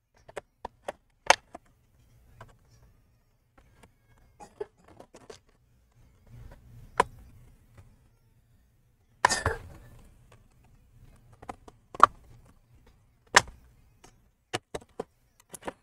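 Plastic retaining clips of a Lenovo IdeaPad Gaming 3 laptop's bottom cover clicking and snapping loose as the cover is pried off with pry tools. There is one longer, louder crackle about nine seconds in, and a quick run of clicks near the end.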